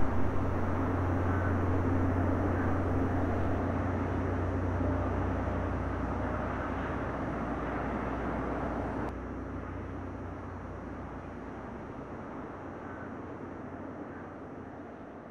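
Steady rumble of distant motorway traffic that slowly fades. About nine seconds in the hiss above it thins abruptly, and a quieter rumble fades on.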